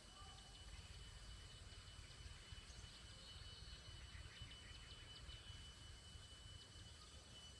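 Near silence: faint outdoor ambience with a steady high insect drone, a few faint chirps and a low rumble.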